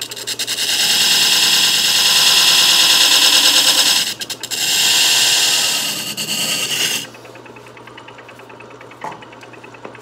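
Hand chisel scraping the rim of a spinning bandsaw wheel, a loud rough hiss as it cuts a slight crown into the wheel. The cut breaks off briefly about four seconds in and stops about seven seconds in, leaving the third-horsepower electric motor running with a steady hum.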